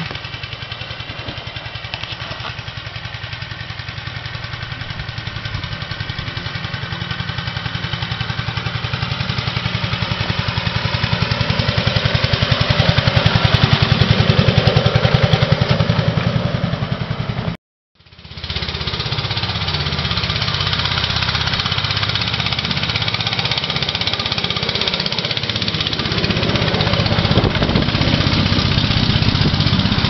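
The engine of a 7¼-inch gauge miniature locomotive running steadily as it pushes a snow plough along the track, growing louder as it approaches. The sound cuts out completely for a moment about halfway through, then the engine runs on close by.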